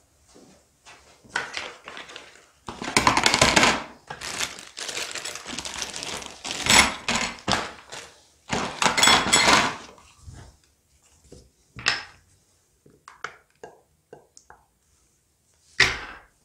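Plastic parts bags crinkling as they are opened and handled, with metal fork bushings clinking and knocking into a plastic tub. The rustling runs through the first ten seconds, followed by a few scattered clicks and a sharp knock near the end.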